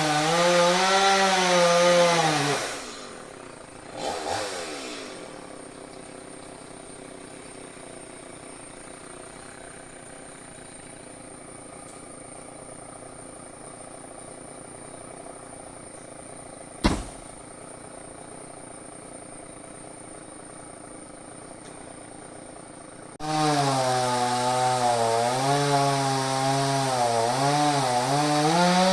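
Chainsaw running at high revs, its pitch wavering, then dropping off after about two seconds and revving briefly once more. A long quieter stretch follows with a single sharp click, and the saw revs up again for the last five or so seconds.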